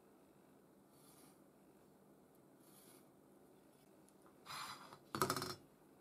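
A steel square laid down and shifted on a work mat: two short scraping clatters about four and a half and five seconds in, the second louder, after a couple of faint rubs.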